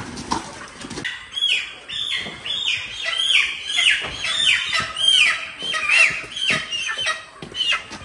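Chicks peeping: a fast, overlapping run of short, high calls, each falling in pitch, about two a second, starting about a second in.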